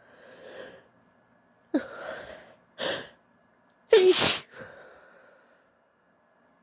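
Woman sneezing: a drawn-in breath, then a run of sharp sneezes in quick succession, the loudest and longest about four seconds in, trailing off into a breath out.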